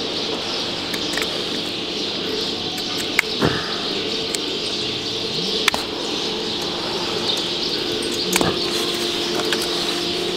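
Small birds chirping continuously over a steady low hum, with a few sharp clicks.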